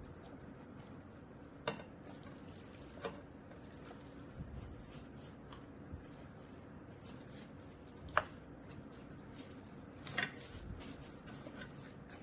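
Kitchen utensils clinking against pots or dishes a few times, short sharp knocks spread over a low steady background.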